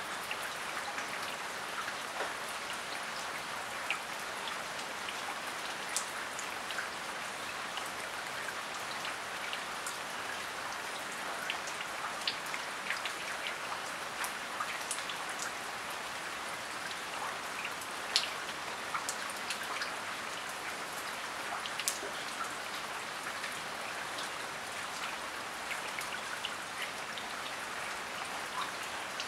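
Steady rain falling, an even hiss with individual drops ticking sharply here and there.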